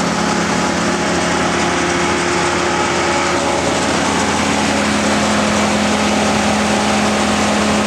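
Vermeer BC1500XL wood chipper running at a steady speed, with the steady hum of its John Deere 4045 diesel engine.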